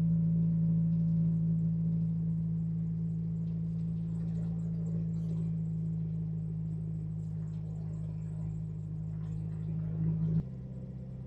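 2004 Jeep Wrangler TJ driving at a steady speed: a low, even engine and drivetrain drone. The drone gives way suddenly, about ten seconds in, to a quieter, slightly different hum.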